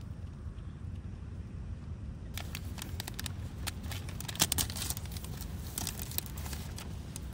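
Burning firewood crackling and popping in a small wood stove, the crackle starting about two seconds in, with one sharp loud pop near the middle, over a steady low rumble.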